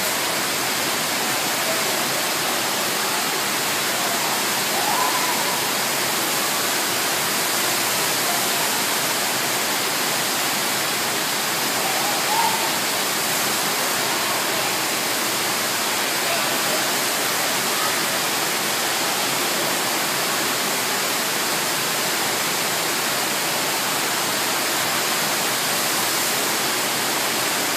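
Steady, loud rushing of a FlowRider wave machine's pumped sheet of water pouring up and over the ride surface.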